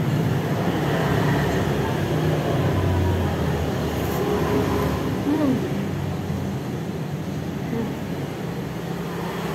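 A person eating instant noodles, slurping and chewing them off a plastic fork, over a steady low rumble of background noise.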